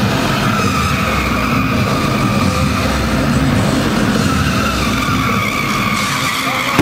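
Several cars driving hard and sliding, engines revving with tyres squealing. The squeal wavers in pitch over a steady, loud engine noise.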